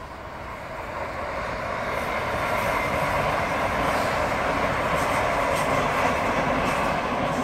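Electric commuter train passing at a distance, its running noise of wheels on rails growing louder over the first few seconds and then holding steady.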